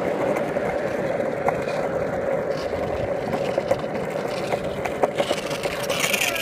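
Cruiser skateboard's wheels rolling on rough asphalt, a steady rumble with a few sharp clicks as the wheels cross cracks.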